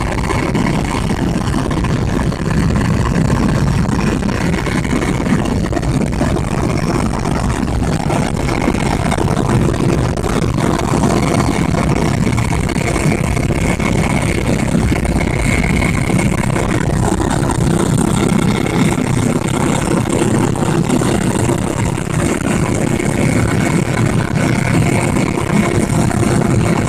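Helicopter in flight: a steady, loud drone of engine and rotor noise.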